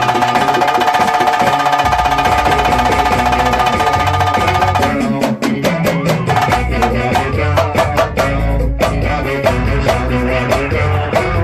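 A band playing an instrumental passage: a held chord over fast drumming for about five seconds, then the drums and percussion break into a groove with sharp hits.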